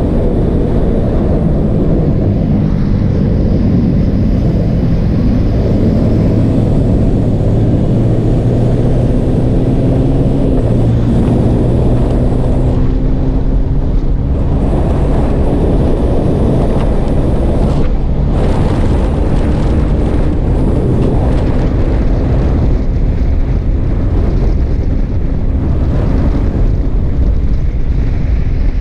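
Yamaha Sniper 155 motorcycle's single-cylinder engine running steadily at speed, with heavy wind rushing over the camera microphone.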